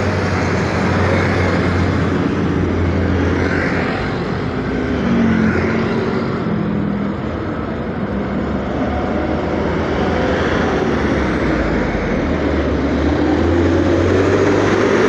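Steady road traffic: engines and tyres of passing motorcycles, cars, buses and trucks, getting louder near the end as a truck draws close.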